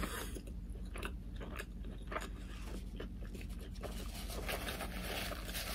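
A person chewing a mouthful of hot pastrami sandwich, with soft scattered mouth clicks and small crunches.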